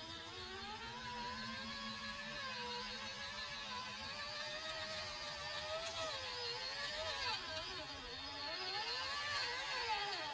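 Electric drive motor and gearbox of a 1/10-scale Traxxas TRX-4 RC crawler whining as it climbs slowly over rocks, the pitch wavering up and down throughout.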